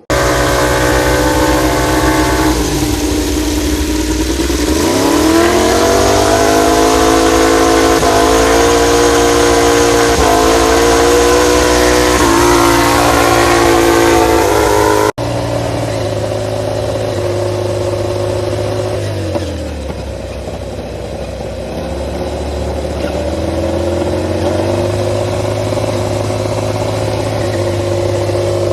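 MotoGP racing motorcycle engines running and being revved in short blips, pitch repeatedly dropping and climbing. A sudden cut about halfway through switches to another engine running at a lower pitch, which dips and then rises again.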